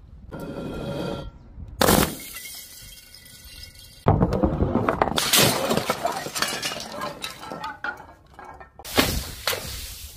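Glass breaking in a series of short takes: shards ringing and tinkling, a sharp smash about two seconds in, then several seconds of dense crunching and crackling as glass ornaments are crushed, and another impact near the end.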